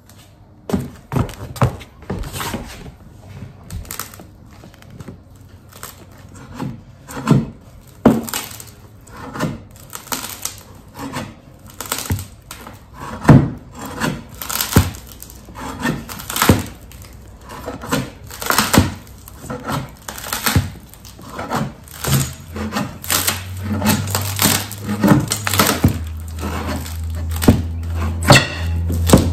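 Plywood and peel-and-stick floor tiles being pried up off an old wood floor: irregular sharp knocks and cracks of wood, about one or two a second. Music with a steady low bass comes in about three-quarters of the way through.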